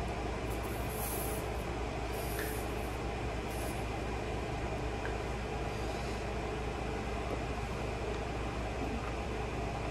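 Steady background hum and even hiss, like an air conditioner or fan running, unchanging throughout, with a few faint soft high swishes in the first few seconds.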